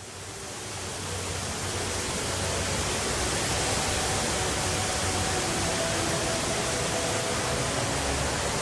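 Steady rush of falling water from the Rain Vortex, a 40-metre indoor waterfall, swelling over the first couple of seconds and then holding steady.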